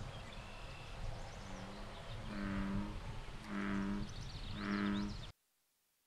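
American bullfrog calling: a series of deep, low-pitched calls, three strong ones about a second apart after a weaker first one, over steady outdoor ambience. The sound cuts off suddenly about five seconds in.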